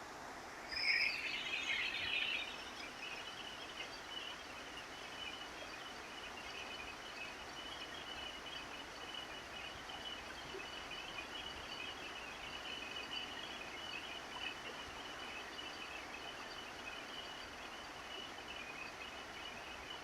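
Steady rain on a roof, an even hiss. A brief burst of chirping comes about a second in, and a faint continuous high trill runs underneath.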